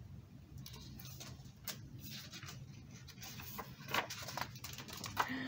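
A picture book's paper pages being turned and handled: faint rustles and soft clicks, with a sharper tap about four seconds in.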